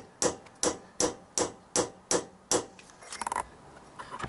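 Hammer striking a chisel against a stuck screw on the engine's carburettor-to-intake-rubber mounting, trying to turn it undone. About seven sharp metal strikes at an even pace, a little under three a second, then a brief quick metallic rattle about three seconds in and one more strike near the end.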